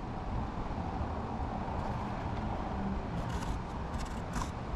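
Steady low background rumble, with a few faint scratches in the second half as a marking tool is drawn along the edge of a metal square onto the wood.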